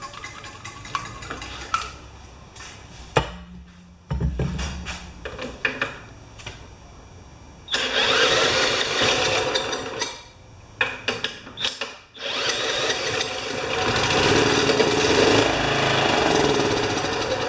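Honda HRA214 lawn mower being pull-started again and again: the recoil cord cranks the engine in several loud stretches, and it sputters without running on its own. It is not firing properly, running only on a little fuel poured into the cylinder.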